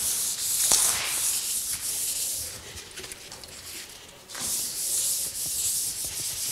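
A cloth rubbing back and forth over a painted car panel, wiping degreaser across the surface in repeated strokes. The wiping stops for under two seconds midway, then resumes.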